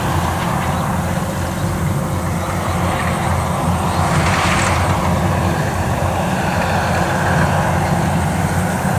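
Yanmar YH850 rice combine harvester running steadily while it cuts the crop: a continuous engine and machinery drone under a hiss. The hiss swells briefly about halfway through.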